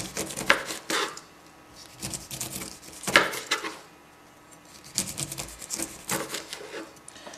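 Kitchen knife slicing down through pineapple rind, a scratchy, crackling rasp in three cuts of one to two seconds each with short pauses between.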